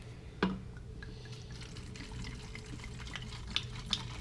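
Liquor poured from a bottle into a plastic sports-drink bottle, trickling and glugging faintly, with a sharp click about half a second in.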